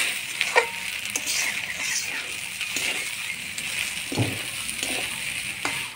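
Gobindobhog rice cooking in ghee in a pot, hissing steadily, with a few short scrapes and clinks of a spatula as it is stirred.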